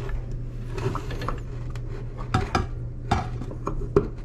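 A handful of small metal clicks and clinks as a jet ski trim cable's threaded end fitting is handled and twisted loose from the trim motor housing, over a steady low hum.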